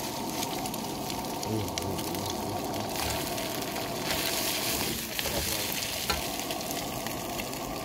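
Shredded cabbage and noodles sizzling in a hot wok while a metal ladle stirs them, scraping and clicking against the wok, with a sharper knock about six seconds in.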